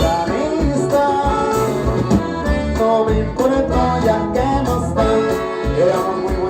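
Live band music with a melodic lead over a pulsing bass line, between sung verses of a romantic song.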